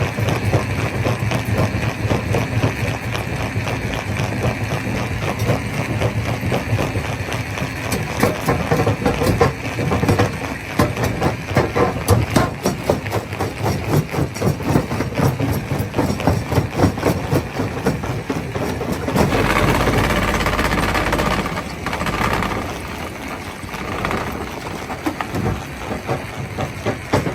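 Rock crusher running: a steady machine drone under rapid, irregular knocking and cracking of stone being crushed. About two-thirds of the way through, a louder rushing noise lasts about two seconds.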